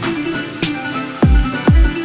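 Electronic background music with a heavy beat: repeated deep bass hits that slide down in pitch, crisp percussion and a held synth tone.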